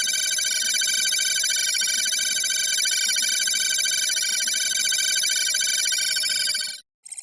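Synthetic electronic sound effect: a dense cluster of high, rapidly pulsing tones with a sweep that rises and falls about every second and a half, over a steady lower hum, cutting off abruptly near the end. A different beeping effect starts right after.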